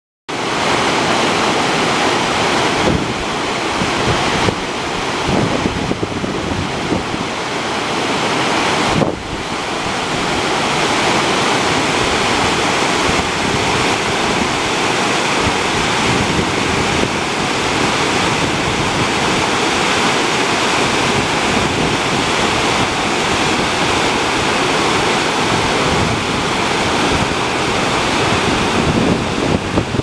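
Lake water pouring over a concrete spillway weir: a steady, loud rush of falling and churning whitewater, with wind buffeting the microphone.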